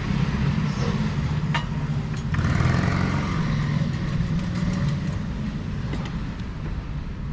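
A steady low rumble of vehicle engine or traffic noise, with a few sharp clicks and a short scraping sound around two and a half to four seconds in.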